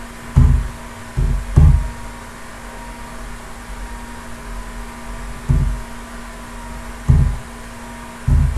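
Dull low thumps, three in the first two seconds and then one every second or two, over a steady low electrical hum.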